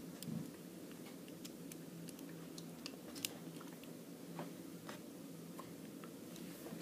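K'NEX plastic rods and connectors clicking and snapping together as pieces are fitted onto a round connector, in scattered, irregular faint clicks over a low steady hum.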